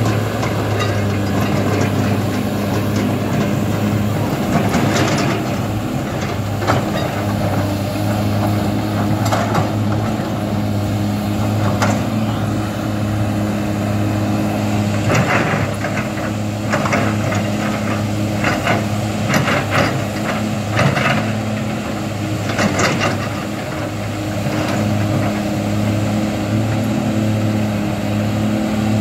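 Kobelco SK200 hydraulic excavator's diesel engine running steadily under working load as the machine digs river mud, with short knocks and clatters at several moments, most in a cluster past the middle.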